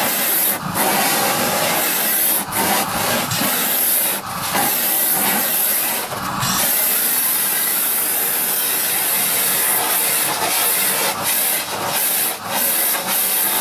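Canister vacuum cleaner running with a steady hiss as its nozzle is drawn through a white Swiss shepherd's coat. The sound dips briefly several times, mostly in the first half.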